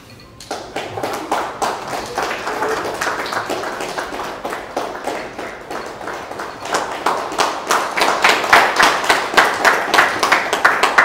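A group of people applauding, the clapping growing denser and louder about seven to eight seconds in.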